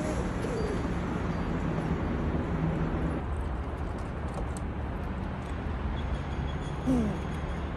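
Squirrel growling low while defending its food, a warning to another squirrel to back off, over a steady background rumble. A brief falling cry near the end is the loudest sound.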